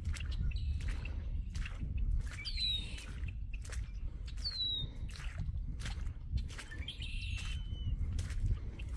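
A bird calling: three short whistles that slide downward, about two seconds apart. Under them are steady walking footsteps and a low rumble.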